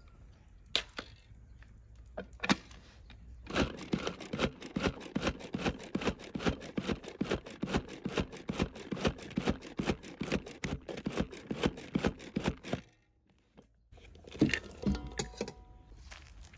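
Manual hand-operated food chopper chopping onion: after a couple of single clicks as the lid goes on, its blades and mechanism rattle in a fast, even run of clicks for about nine seconds, then stop suddenly. A few knocks follow near the end.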